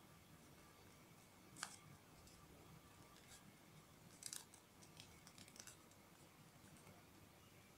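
Faint crinkles and crisp crackles of origami paper being folded and creased by hand: one sharp crackle about a second and a half in, a cluster of them around four seconds, and a few softer ones soon after.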